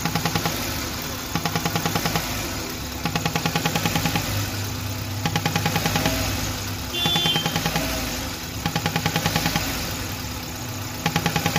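Old-model Maruti Suzuki WagonR petrol engine idling, with a recurring rapid ticking chatter on top: about ten ticks a second in bursts of just under a second, repeating every second and a half or so. The noise comes from the evaporative canister purge hose, which has slipped off its connection.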